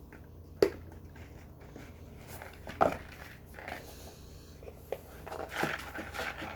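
Hands handling and opening a jewelry box and its packaging: a sharp snap about half a second in, a short knock near three seconds, then rustling near the end.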